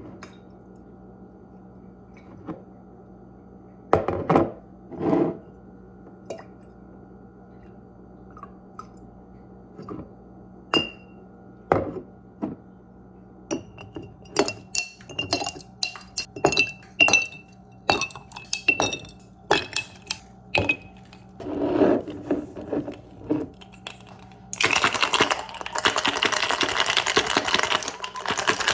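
Dishes and utensils clinking and knocking, with scattered single impacts, some ringing briefly. Near the end a steady rushing noise starts and continues.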